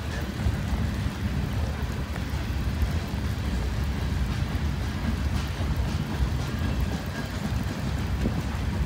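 Freight train of covered hopper cars rolling past close by: a steady rumble of steel wheels on the rails.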